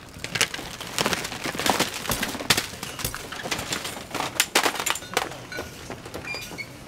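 Packages clattering and rustling as they are swept off a store shelf into a plastic hand basket: a rapid run of knocks and crackles that thins out near the end.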